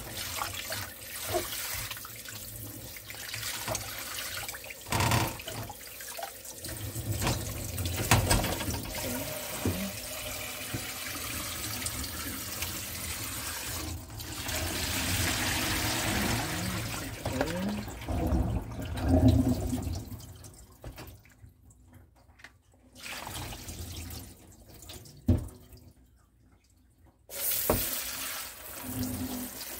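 Tap water running into a stainless steel kitchen sink as blanched garlic stems are rinsed in a plastic colander, with a few knocks along the way. The water stops twice briefly in the second half, then starts again near the end.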